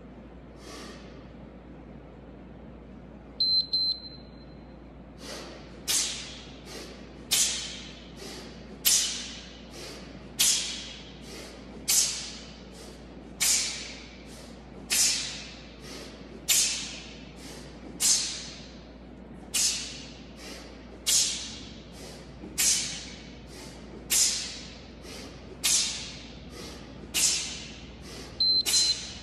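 An interval timer beeps a few times about three and a half seconds in and again near the end, marking a 25-second work interval. Between the beeps come sharp, hissing breaths timed with one-arm kettlebell swings, a strong one about every second and a half with weaker ones between.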